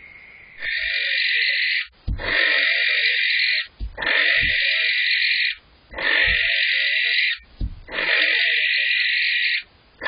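Male barn owl screeching: five long, harsh, hissing screeches in a row, each about a second and a half, with short pauses between. Soft low thumps fall in some of the pauses.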